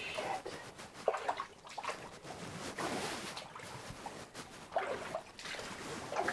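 Boots wading through flood water, sloshing and splashing irregularly with each step.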